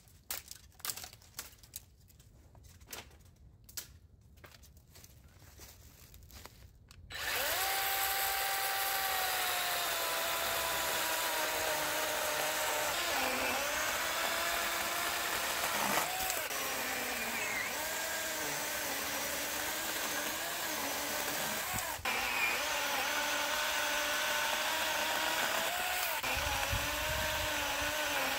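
Faint scattered knocks, then about seven seconds in a power tool's motor starts abruptly and runs steadily to the end. Its pitch wavers and dips now and then.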